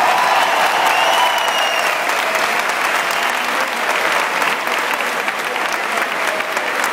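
A large crowd applauding and cheering at the close of a mascletà firecracker barrage.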